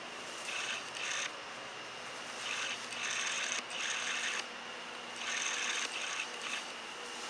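Thin plastic trash-bag sheeting rustling and crinkling in three bursts, over a steady hum.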